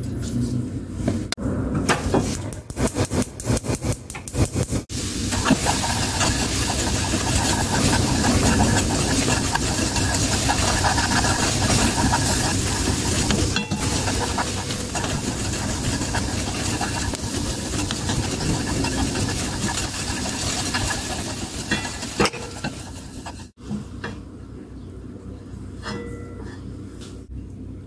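Soy sauce sauce with minced garlic simmering and sizzling in a wok while a wooden spoon stirs it, with a few knocks of the spoon at first. The sizzling is steady through the middle and drops to a quiet stir with light scrapes near the end, once the heat is off.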